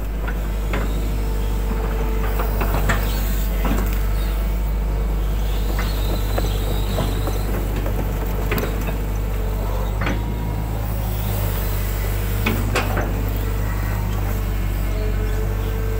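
Excavator's diesel engine running steadily as the boom and bucket work, a constant low drone with a higher whine that comes and goes, and scattered knocks and clanks.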